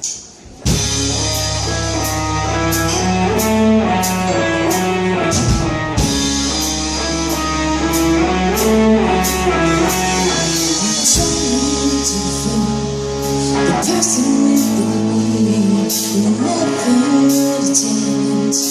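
Band music starting abruptly about half a second in: the instrumental intro of a song, with a bass line under pitched instrument notes and a steady beat of high cymbal strikes.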